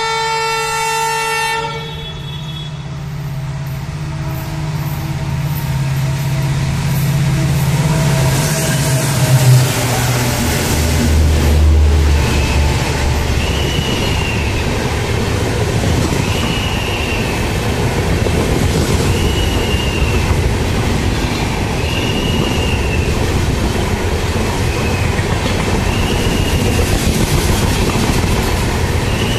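A WDP-4D diesel locomotive's multi-tone horn sounds for under two seconds at the start. The locomotive's engine drone then builds as it approaches and passes close by. Passenger coaches follow at speed with a steady wheel rumble and clatter, and a short rising-and-falling squeal about every two seconds.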